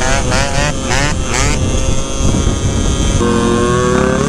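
Two-stroke scooter engines revving hard, the pitch climbing and falling several times in quick succession over the first second and a half. After a break, a steady engine note rises slowly as the scooter accelerates.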